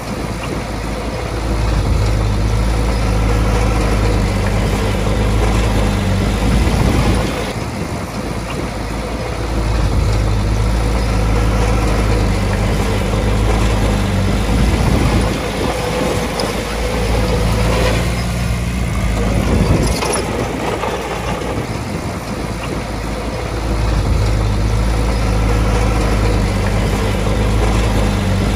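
Komatsu D20A bulldozer's diesel engine running steadily, swelling louder and easing off in several long stretches as it works. A single sharp knock comes about two-thirds of the way through.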